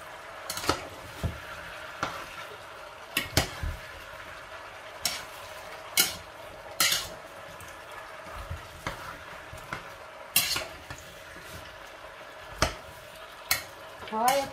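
A spatula stirring chopped vegetables in a pan, knocking and scraping against it a dozen or so times at irregular intervals, over a steady sizzle of the vegetables warming in olive oil.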